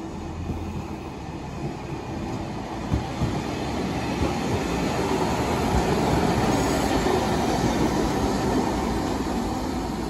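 Kumamoto City Tram 8500-series car with nose-suspended traction motors, running on street track as it approaches and draws alongside. The rumble of motors and wheels on rail grows louder toward the middle, with some wheel noise on the rails.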